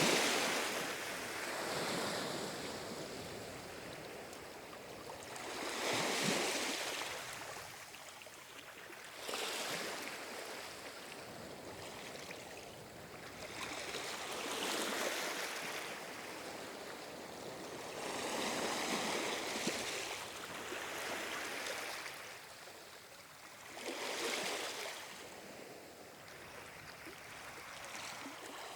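Calm ocean waves breaking and washing in, a hissing surge of surf that swells and falls back every four to six seconds, about six times.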